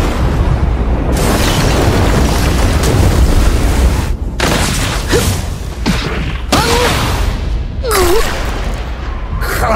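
Anime sound effects from Naruto laid over a fight scene: a heavy booming rumble for about the first four seconds, then a series of sudden blasts with short gliding pitched sounds between them.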